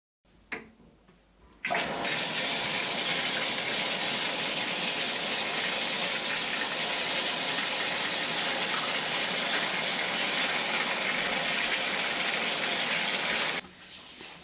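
Water from a tap pouring into a bathtub, starting suddenly about a second and a half in after a short knock, running steadily, and stopping suddenly near the end.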